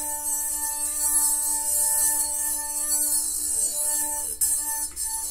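Wine glass filled past half with water, singing as a wet finger rubs around its rim: a steady ringing tone with overtones, its pitch lowered by the water. The tone fades briefly about three seconds in.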